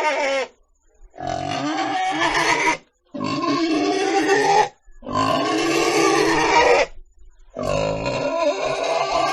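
Pig making a series of long, pitched calls, each about two seconds long, with short pauses between them.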